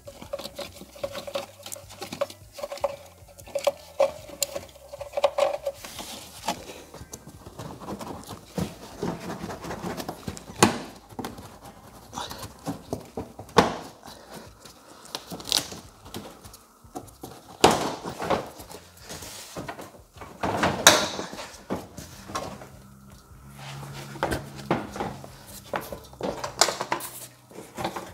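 Irregular hard plastic clicks, knocks and clatter as a BMW X5's rear bumper cover is handled and pulled free of its clips, with the two loudest knocks close together about two-thirds of the way in.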